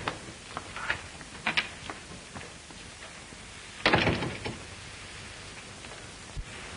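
A few light knocks and clicks, then a door shutting with a thud about four seconds in, the loudest sound, over the steady hiss of an old film soundtrack.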